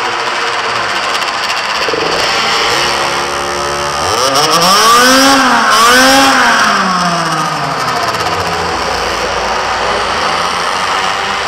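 Minimoto engines running around a track, with one small engine close by revving up and falling back twice about halfway through.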